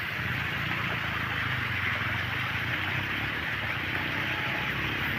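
A small stream of water running steadily over a flat drainage surface, a soft even rush. A low engine-like hum sits underneath, a little stronger in the second half.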